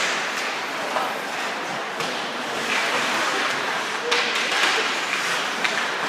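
Ice hockey play in an arena: a steady hiss of skates and general rink noise, with a few sharp clacks of stick, puck and boards.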